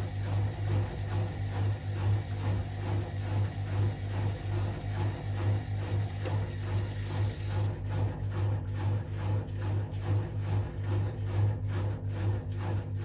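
Hotpoint WMA37 Aquarius washing machine running, a low steady motor hum that swells and fades in a regular pulse about twice a second.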